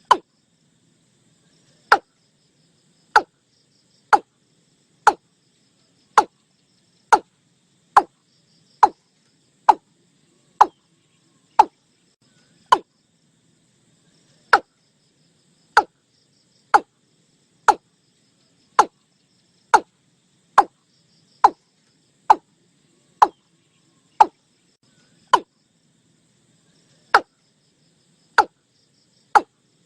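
Watercock calling: a short, sharp note repeated about once a second, pausing briefly now and then, over a faint insect hum.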